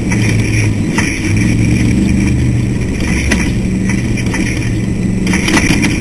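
Ultra4 race car's engine running hard at speed, its pitch holding steady with brief small dips, heard from inside the car. Occasional sharp clicks and knocks from the car rattling over rough ground.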